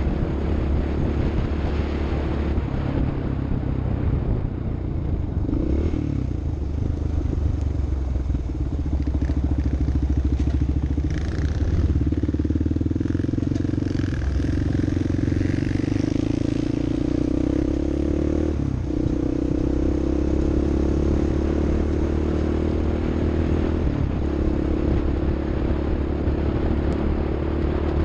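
Off-road vehicle engine running at fairly steady revs, its pitch shifting briefly a few times, with some light rattling.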